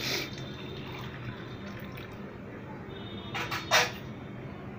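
Hot water being poured from a steel pot into a plastic water bottle. A short, sharp noise comes about three and a half seconds in, the loudest moment.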